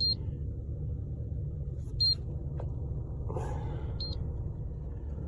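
Handheld alarm-system keypad beeping while the system arms: three short high beeps about two seconds apart, over a steady low rumble.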